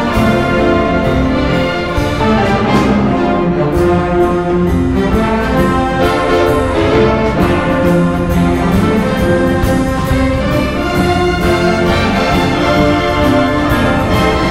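Youth wind band playing live: trumpets, trombones, clarinets, saxophones and French horns together in full, sustained ensemble chords.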